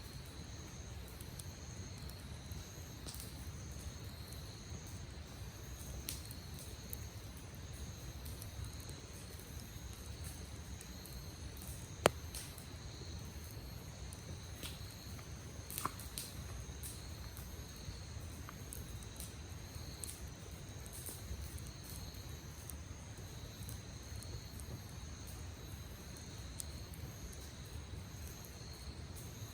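Wood campfire crackling with scattered sharp pops, the loudest about twelve seconds in, over steady high insect trilling.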